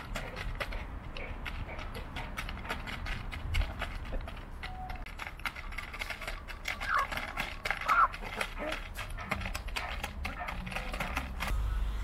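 Hens pecking dry cat food out of a plastic bag on pavement: rapid, irregular tapping and crackling of beaks on kibble and plastic. A couple of short high calls come about two-thirds of the way in.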